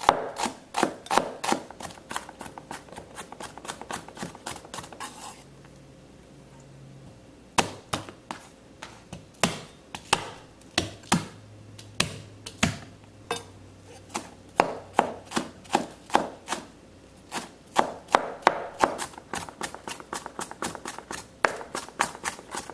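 Chef's knife mincing shallots, then green onion, on a plastic cutting board: quick, even knocks of the blade on the board. The chopping stops for about two seconds around five seconds in, then starts again.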